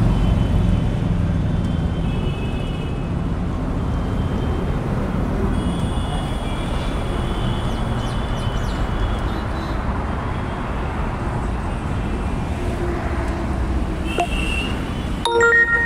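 Steady road-traffic noise, a low rumble of passing vehicles with a few faint short high tones over it. Near the end a phone alert starts chiming: a ride-hailing app's ride-request alert.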